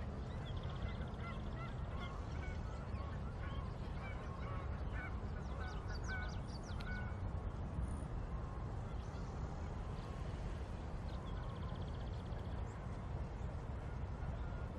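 Outdoor ambience of a steady low rumble with birds calling over it: a run of short calls in the first half and two brief buzzy trills, one at the start and one about three-quarters through.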